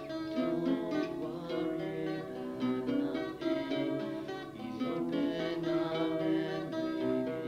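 Background music: a plucked-string instrumental, picked notes over held tones.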